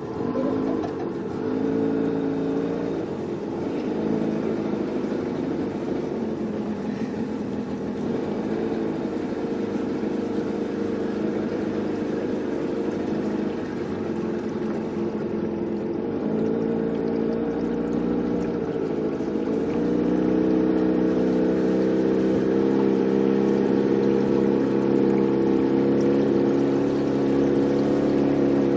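Small motorboat's outboard engine running, its pitch rising and falling a few times as the throttle changes, then holding a steadier, higher and slightly louder note for the last third.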